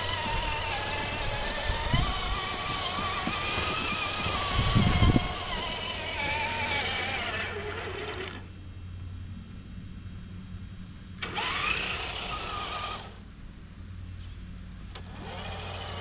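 Traxxas TRX-4 RC crawler on Deep Terrain Traxx track units, its electric motor and drivetrain whining and rising and falling in pitch with the throttle, along with a couple of low thumps, the loudest about five seconds in. The whine stops a little past halfway, comes back in a short burst, then starts again near the end.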